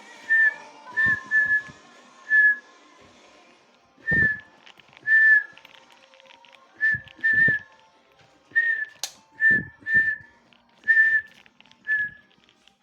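Short, high whistled notes, about a dozen, all at much the same pitch and each dipping slightly at the end, spaced irregularly a second or so apart, with a few soft thumps underneath.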